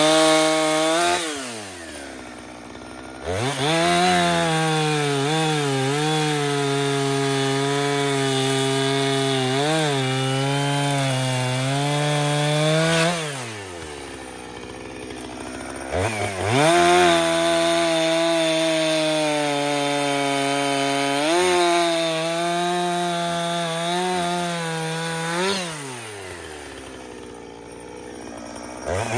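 Two-stroke chainsaw revved to full throttle and held there through two long cuts in a downed hardwood tree, its pitch wavering as the chain bites. Between cuts it drops back to idle, then revs up again.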